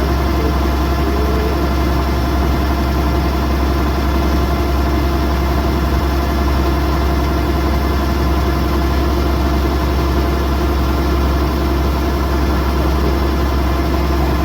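Kubota DC108X combine harvester running steadily, a loud, even engine drone with several constant tones above it.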